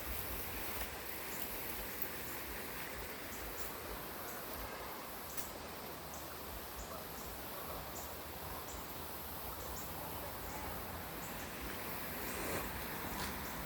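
Outdoor ambience beside water: a steady rushing hiss, with many short high chirps scattered through it.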